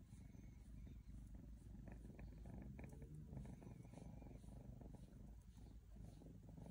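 Faint, low rumbling from a calico cat close by, with a few soft ticks about two to three seconds in.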